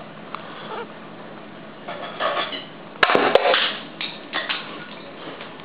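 A liquid-nitrogen-frozen plastic Electabuzz figurine bursting as it warms: a sharp crack about three seconds in, a second crack a moment later, and a short clatter.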